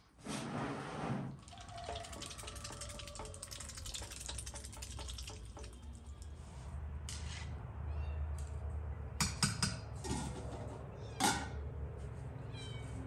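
Water splashing and dripping as a Muscovy duck dabbles its bill in a water trough. Later come a few sharp knocks and some short chirps.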